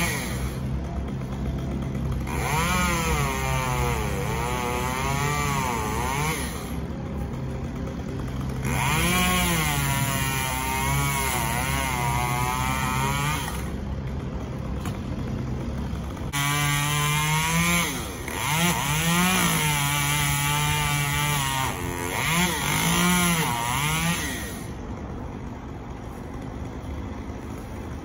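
Chainsaw revving in four long spells as it cuts palm fronds, its pitch sagging and rising under the load. It drops back to idle between cuts and for the last few seconds.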